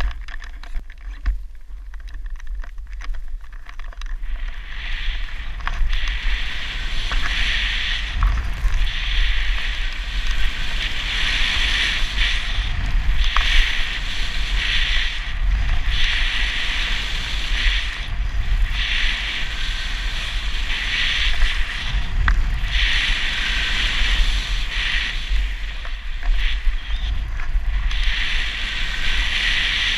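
Snowboard sliding over snow, its hiss swelling and fading every couple of seconds as the board turns, starting about four seconds in. Wind buffets a helmet-mounted camera's microphone with a steady low rumble throughout.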